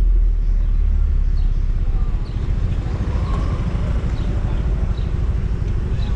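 Low, steady rumble of a slow vehicle ride, heard from a camera mounted on the vehicle, with faint short high chirps recurring about once a second.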